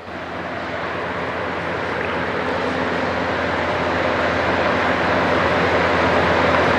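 A steady rushing noise, with no clear pitch or rhythm, that grows steadily louder throughout.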